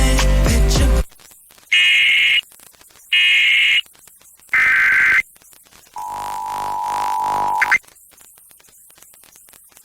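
Emergency Alert System header over FM radio: three short bursts of warbling digital data tone about a second apart, then about two seconds of the steady two-tone attention signal. Music cuts off about a second in, just before the bursts.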